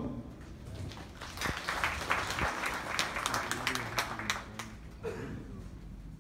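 Audience applause, building about a second in and fading out around five seconds in, with many individual hand claps standing out.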